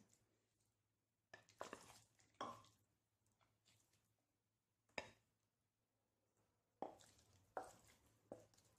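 Faint, soft plops and scrapes of thick marinated mutton pieces dropping from a ceramic bowl into a nonstick pan and being scraped out with a spatula: about seven short, separate knocks, with no sizzling.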